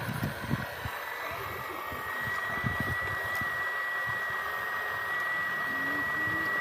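Steady whirring of an RC model's small electric motor, with a thin high whine that settles in about two seconds in and holds steady. A few low thuds come in the first three seconds.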